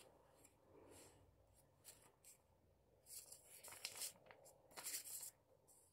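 Faint rustling of paper leaflets being handled and leafed through, in a few short rustles, the clearest between about three and five seconds in.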